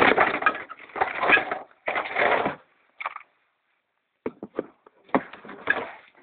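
Picture tube of an old CRT television breaking: a run of crunching, crackling bursts for the first couple of seconds, then a pause, a few clicks and one more burst near the end. To the scrapper this is the tube's gases coming out.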